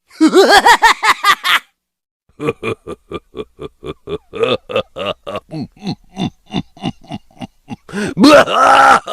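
Cartoon laughter sound effects. A quick burst of giggling comes first, then a short pause, then a long run of rhythmic snickering at about four laughs a second, ending in a louder laugh.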